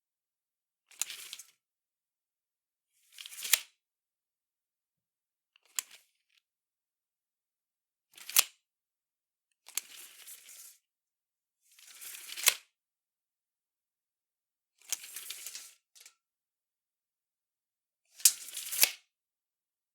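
Retractable steel tape measure, its blade pulled out and let snap back shut again and again: about eight short rattling bursts with silence between, several ending in a sharp snap as the blade slams home.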